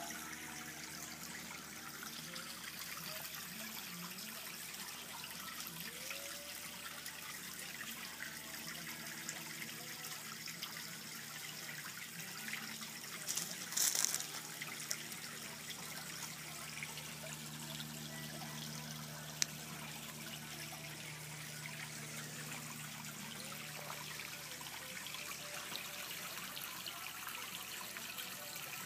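Steady trickle of water in a backyard pond. About halfway through there is a brief louder burst of noise, and a single sharp click comes a few seconds later.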